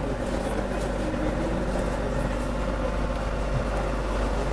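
Steady ventilation hum and rushing air from large overhead air ducts, with a constant mid-pitched tone and a low drone underneath.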